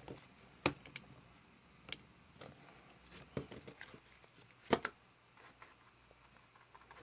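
Slime being handled and squeezed in the hands, giving a few scattered soft clicks and pops, the clearest about a second in and again near five seconds.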